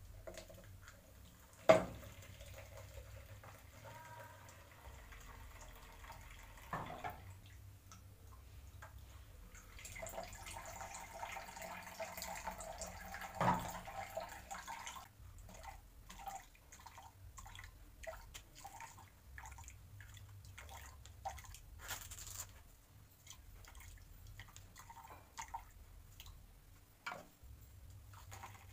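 Faint pouring and dripping of blended carrot, orange and ginger juice as it strains through a cloth-lined sieve into a plastic measuring jug. A sharp knock comes about two seconds in, and a smaller one about halfway through.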